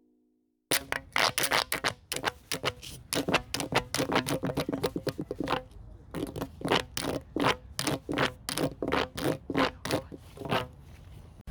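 Pop Tube sensory toy, its ribbed plastic tube being worked by hand so the corrugations snap. It makes an irregular run of sharp clicking pops, several a second, with a faint hum underneath. The pops start suddenly about a second in and break off briefly about six seconds in.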